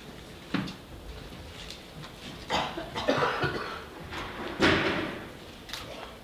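A few scattered, irregular thuds and knocks of a dancer's steps and stamps on a stage floor, without music, the loudest a little past the middle.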